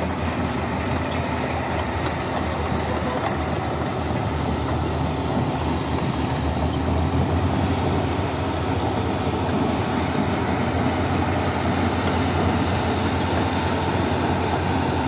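Hitachi crawler excavator travelling: its diesel engine runs steadily under the squeal and clatter of its steel tracks.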